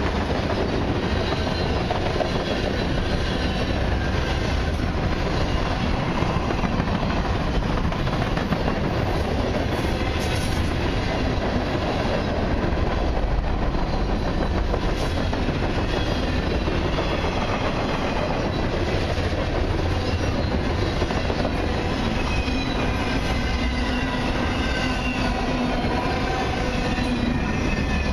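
Freight cars of a long mixed freight train (tank cars, covered hoppers and autoracks) rolling past close by: a steady rumble of steel wheels on the rail, with faint high squeals from the wheels now and then.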